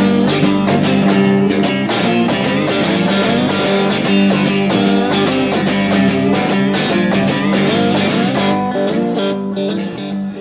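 Electric guitar and electric bass playing an instrumental passage with quick picked notes over a steady bass line, played live. The playing thins out and gets quieter near the end.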